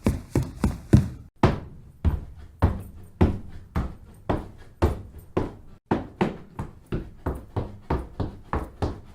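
Footstep sound effect: a steady run of evenly spaced, sharp steps, with two brief drop-outs where the track cuts.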